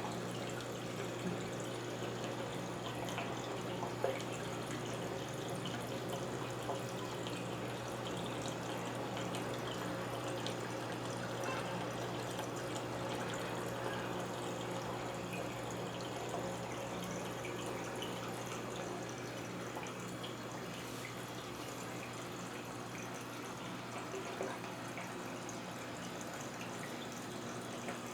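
Brastemp 14 kg washing machine running quietly: water trickling and dripping in the drum over a steady low hum.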